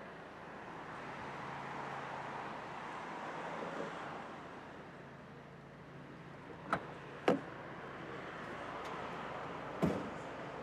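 Steady street and traffic noise with a low hum that stops about four seconds in, and three short sharp knocks: two close together past the middle and one near the end.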